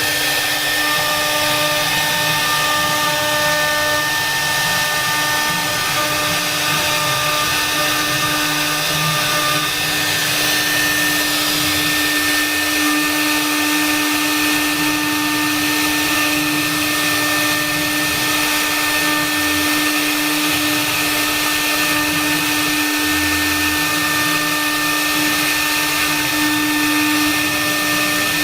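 CNC router spindle running steadily with a constant whine, over the hiss of the bit cutting as the machine carves a half-round piece.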